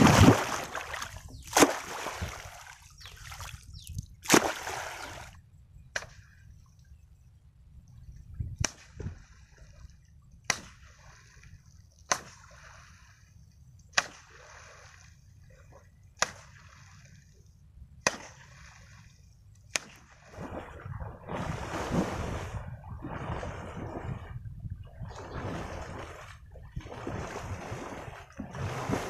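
Water slapped hard again and again to drive fish out of the weeds: a few loud splashes, then sharp single slaps about every two seconds, giving way near the end to steady splashing and sloshing through the water.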